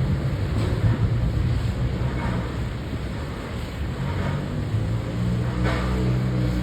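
An engine runs steadily with a low hum, among a few brief scraping or rushing noises.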